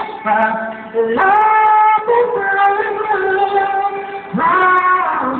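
A person singing in a long, drawn-out ballad style, holding each note for a second or more and sliding between pitches, with short breaths about a second in and near the end.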